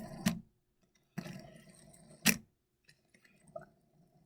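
Plastic fidget toys being handled: two sharp clicks about two seconds apart, with rustling between them and a faint knock near the end.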